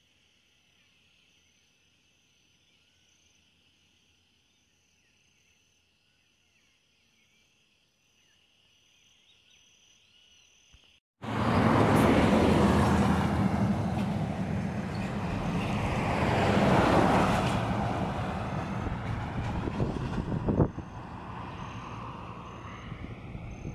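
Faint steady chirping of insects, then, after a sudden cut about eleven seconds in, a road vehicle passing loudly on the highway, swelling to a peak and fading away, with the insects faintly audible again near the end.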